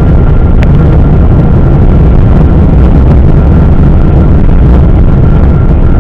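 Boeing 777 engine and airflow noise heard inside the passenger cabin during landing: a loud, steady rumble with a thin, steady high whine over it, and one short click about half a second in.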